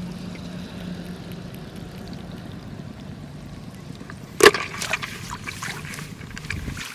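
Water trickling and splashing in shallow field water, with one sharp splash or knock about four and a half seconds in and smaller splashes after it, over a steady low hum.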